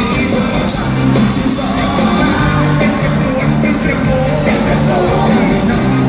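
Live concert music played loud through the arena's sound system: a singer over a band with a running bass line, with fans yelling and whooping over it.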